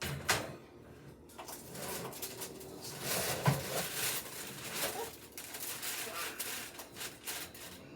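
Knocks, clinks and scraping of a baking tray of cookies being handled and slid into an oven, with faint voices in the background.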